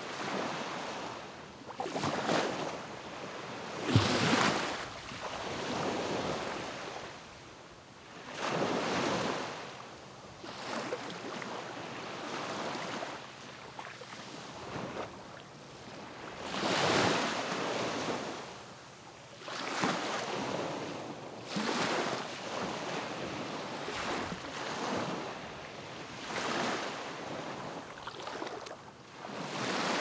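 Sea waves breaking on the beach one after another, each wash of surf swelling up and fading away every few seconds, with a few larger breakers among them.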